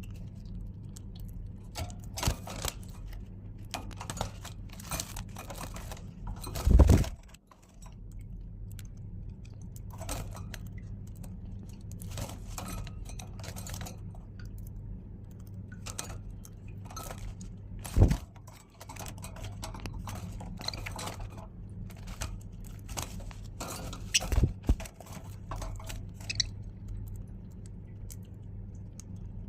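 Budgerigars cracking and husking seed: a scatter of small clicks and crunches over a steady low hum. Three loud thumps are spread through it.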